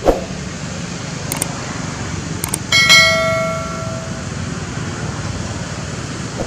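Subscribe-button sound effect: a short falling swoosh, then a few quick mouse clicks, then a bell ding near the middle that rings out for about a second. A steady low background hum runs throughout.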